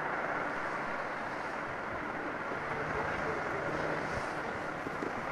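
Steady rushing engine noise of a distant jet aircraft flying past an airfield, with no change in pitch.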